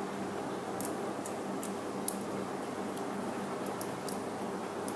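Small painted plastic Gunpla head parts clicking and tapping as they are handled and pressed together: several light clicks, the sharpest about two seconds in, over a steady room hiss.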